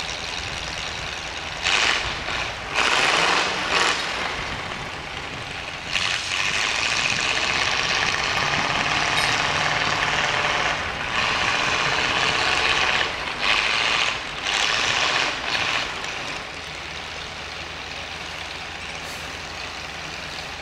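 Steam donkey engine letting off steam: a few short hissing blasts, then a long hiss lasting several seconds that breaks into shorter blasts and stops about three-quarters of the way through, with the engine's low rumble underneath.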